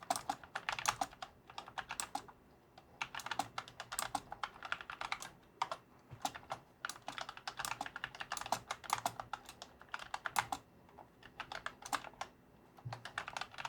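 Typing on a Freewrite Alpha keyboard fitted with spare Nuphy Air75 keycaps: quick runs of key clicks broken by short pauses.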